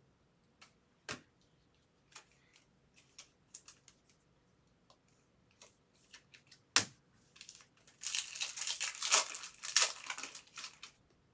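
Trading cards being handled with scattered light clicks and a sharp snap about seven seconds in, then a few seconds of loud crinkling and tearing as a card pack wrapper is ripped open.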